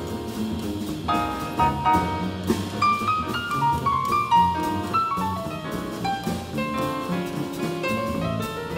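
Live acoustic jazz from a piano trio: grand piano playing melodic lines over double bass and drum kit with cymbals, a climbing run of notes near the middle.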